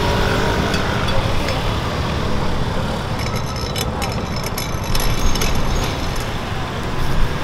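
Steady street traffic rumble, with a run of light clinks and rustles about three to five seconds in.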